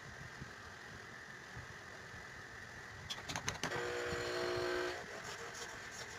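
Faint workshop background with a few light clicks of wooden mallet parts being handled, and a brief steady mechanical hum a little after halfway through.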